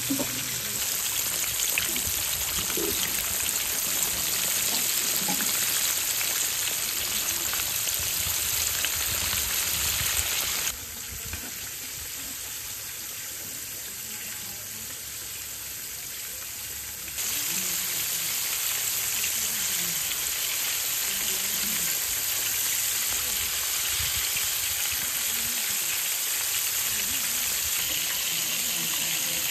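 Battered chicken thighs deep-frying in a wok of hot oil: a steady, hissing sizzle. About a third of the way in it drops quieter for several seconds, then comes back to full strength.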